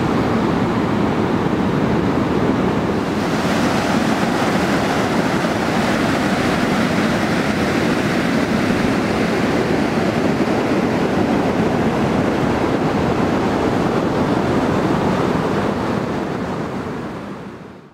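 Surf breaking and washing up over a sandy beach, a steady rushing wash with some wind on the microphone; it fades out near the end.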